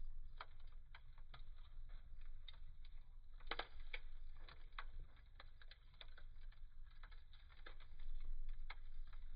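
Wood fire burning in a fireplace: irregular sharp crackles and pops from the burning logs over a low steady rumble of the flames, with a quick cluster of pops about three and a half seconds in.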